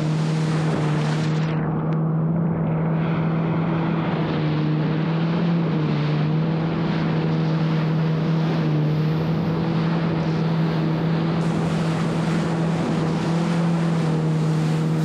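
Jet ski under way at steady speed over choppy sea: its engine drones at one even pitch under a loud rush of water and spray, with wind buffeting the microphone.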